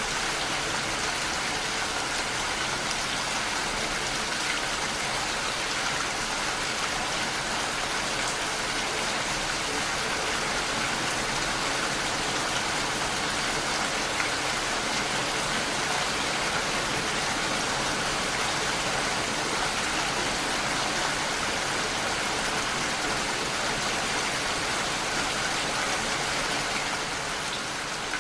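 Steady, even rainfall: continuous rain pattering on a surface, with no thunder or breaks.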